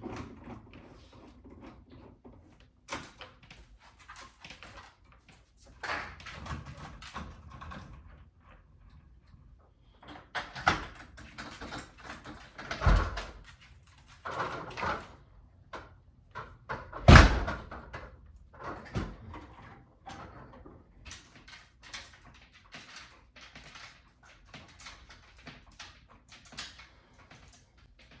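Household knocks and clatter: doors and cupboards being opened and shut, with two louder thumps.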